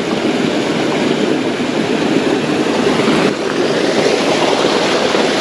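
Mountain stream running over rocks and a small cascade: a steady rush of water.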